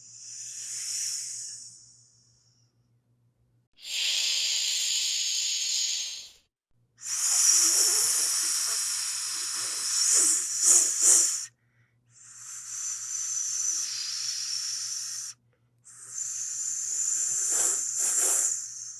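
A snake hissing in five separate drawn-out hisses of two to four seconds each, with short pauses between them; the third and fifth hisses end with a few sharper, stronger puffs. A faint steady low hum runs underneath.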